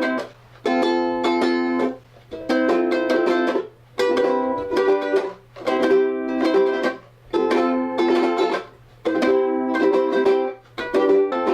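Ukulele strummed in chords, in phrases of about a second and a half, each broken off by a short pause.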